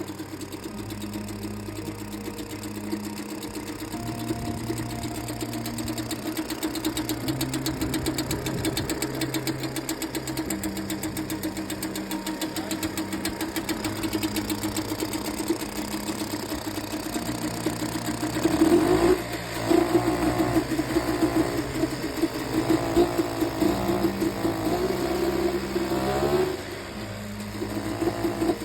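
British Seagull two-stroke outboard engine running with a rapid, even popping beat. About two-thirds of the way in it is revved: its note rises and it runs louder for several seconds, then drops back near the end.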